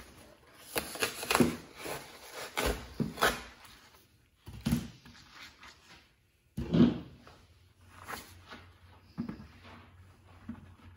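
Fiberglass duct board being cut with a duct knife and handled: a run of short scraping, rustling and tearing sounds as the cut-off strip is pulled away. The loudest come about five and seven seconds in, followed by quieter handling of the grooved board.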